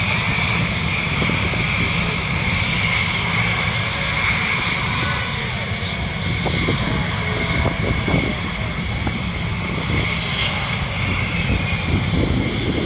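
Airplane engine noise: a steady rumble under a high, slightly wavering whine.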